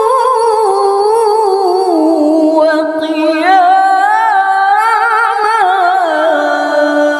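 A woman's voice in Qur'an recitation (tilawah), drawing a single held syllable out into a long melodic run with wavering ornaments. There is a brief break about three seconds in, after which it starts again higher and sinks slowly toward the end.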